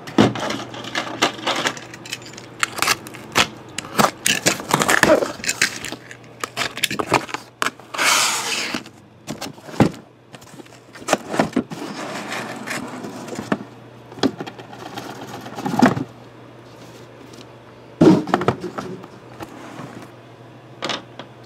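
A cardboard shipping case being opened and emptied: many scattered knocks, scrapes and rustles of cardboard and shrink-wrapped boxes being handled and set down, with a longer tearing rasp about eight seconds in.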